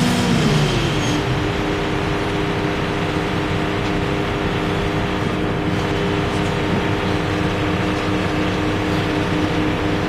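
Terex T560 hydraulic truck crane's diesel engine running; its revs drop within the first second, then it holds a steady speed.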